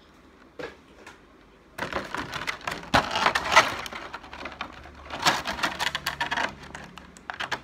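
Hard plastic clicking and rattling from a plastic action figure being handled, in two busy bursts, one about two seconds in and another about five seconds in.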